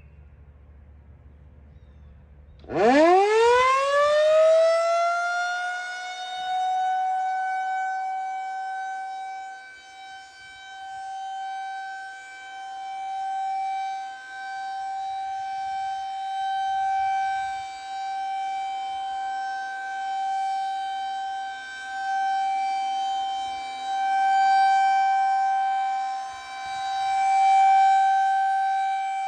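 Federal Signal 2001-SRNB rotating outdoor warning siren winding up quickly from a low pitch about three seconds in, then holding one steady wailing tone. Its loudness swells and fades every few seconds as the rotating head sweeps past.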